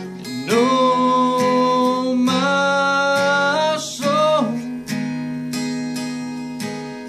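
Acoustic guitar strummed steadily, with a man singing long held notes over it.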